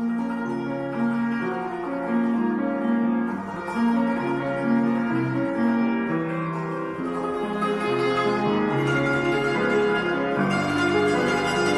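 A small hammered dulcimer (tsymbaly), struck with light mallets, playing a melody of ringing notes over a grand piano accompaniment.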